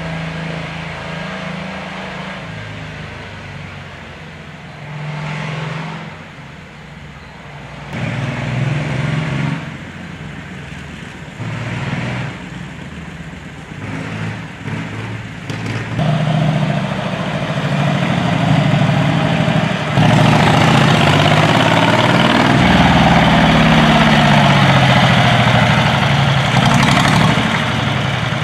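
Old vehicle engines running, idling and revving, their pitch rising and falling. The sound grows louder about halfway through and is loudest in the last third.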